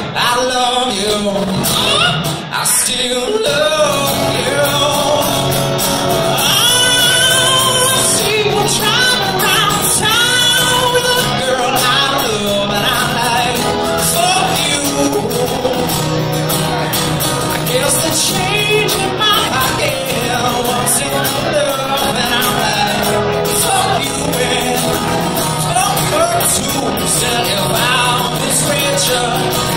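Live music: two acoustic guitars played together, with a man singing into a microphone.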